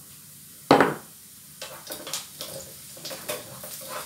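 Onions and garlic frying in a pan on a gas stove, with a spatula stirring and scraping the pan in quick irregular strokes from about a second and a half in. A single loud knock comes a little under a second in.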